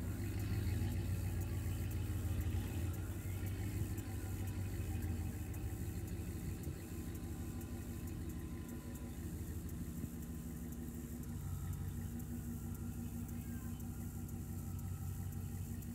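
Engine idling steadily with a low hum, a little louder for the first six seconds.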